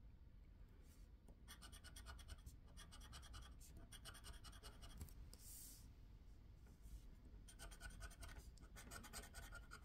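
Scratch-off lottery ticket being scratched with a hand-held scratching tool: two spells of quick, faint scraping strokes, with a short soft hiss in the pause between them.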